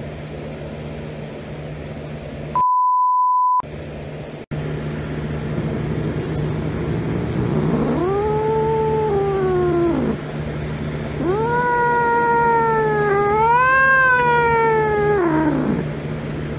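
A tabby-and-white domestic cat yowling: two long, drawn-out yowls, the second longer and rising higher before falling away, the distressed caterwaul of a stressed, agitated cat. About three seconds in, a one-second censor bleep.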